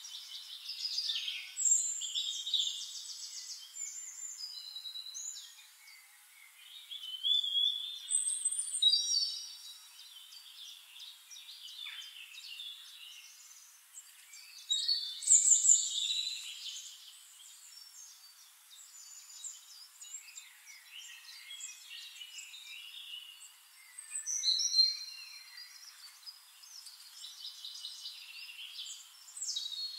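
Songbirds chirping, trilling and whistling in overlapping calls, swelling into louder bursts every several seconds, with no low sound beneath them.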